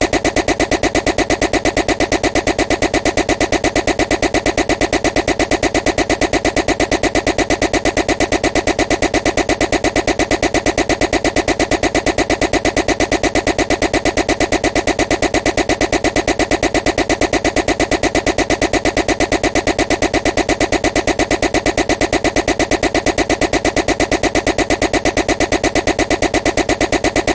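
A loud, harsh, looped noise pulsing rapidly and evenly without any change: a deliberately annoying sound played on repeat.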